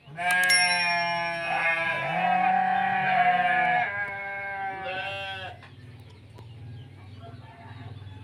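A rooster crowing: one long, loud crow of nearly four seconds, then a short call about five seconds in.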